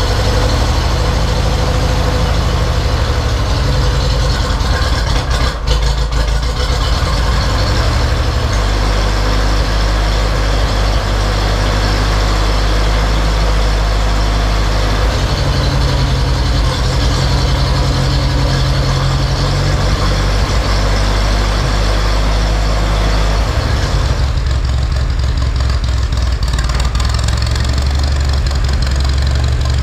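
Ferguson TED20 tractor's four-cylinder engine running steadily at idle just after starting. Its note shifts a few times, about 8, 15 and 24 seconds in.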